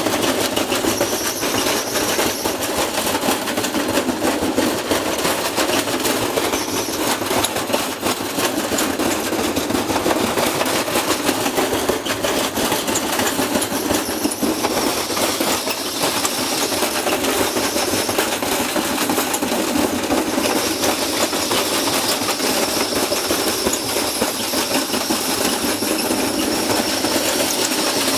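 Washing machine spinning with a heavy sealed lead-acid battery in the drum: a steady loud mechanical racket of rapid banging and rattling from the badly unbalanced load. A high whine comes in about halfway through and holds.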